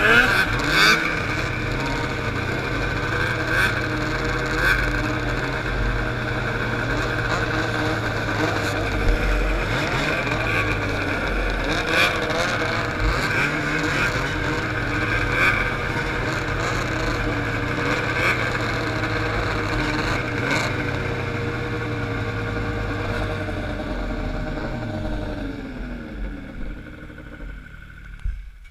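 Snowmobile engines idling together in a staging line, with short louder blips of throttle now and then. Over the last few seconds the nearest engine winds down and the sound drops away.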